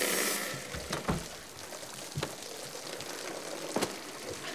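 Water spraying and splattering from a burst waterbed, a loud hiss in the first half second that then thins out. A few sharp knocks and thumps come about one, two and four seconds in.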